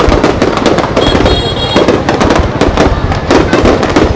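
Aerial firework shells bursting in quick succession: a dense, continuous run of booms and crackles.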